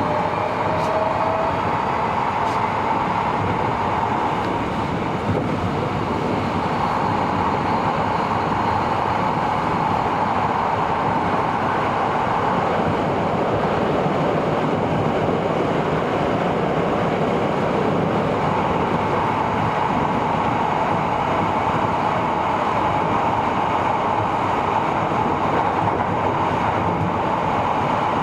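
Tobu 70000 series electric train heard from inside the car while running at speed through the Hibiya Line subway tunnel: a steady, even running noise of wheels on rails and traction equipment.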